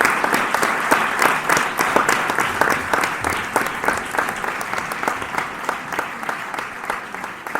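Audience applause, many hands clapping densely, slowly fading as it dies down.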